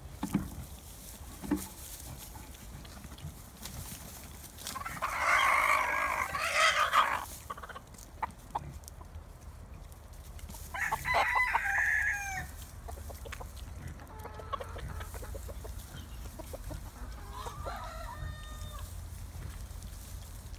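Rooster crowing: two loud, drawn-out crows about five and eleven seconds in, followed by two fainter calls later.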